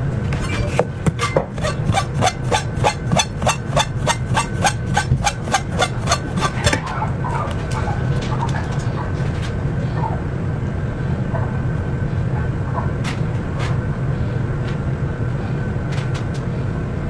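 A cleaver rapidly slicing a tomato into thin strips on a cutting board: sharp, even knife strikes about four a second for the first seven seconds. After that come only scattered soft taps and handling sounds as the strips are worked, over a steady hum.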